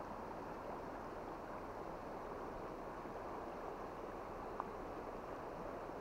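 Shallow, clear mountain stream running over a pebble bed: a steady rush of flowing water.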